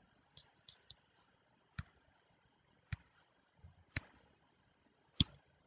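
Four sharp clicks about a second apart, with a few fainter ticks between them, made while picking the pen and colour in on-screen drawing software.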